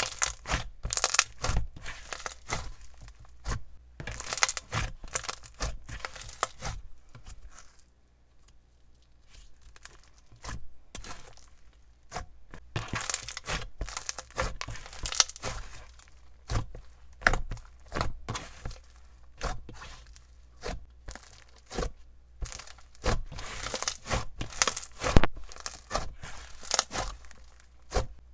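Hands squeezing, stretching and pressing an inflated brown jelly slime with honeycomb sponge pieces mixed in, making sticky crackling and popping clicks in quick irregular runs. There is a brief near-silent pause about eight seconds in.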